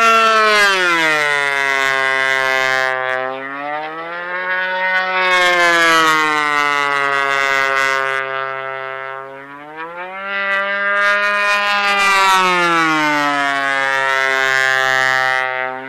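RC model airplane engine and propeller flying passes, its pitch falling three times as it goes by and rising as it comes back.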